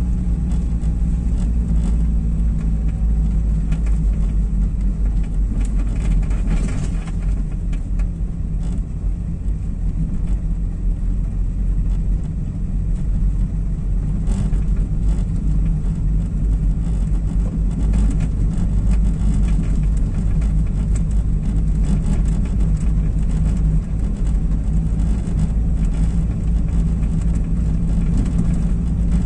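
A car driving, heard from inside the cabin: a steady low engine drone with tyre noise on brick paving, and a few brief knocks about six and fourteen seconds in.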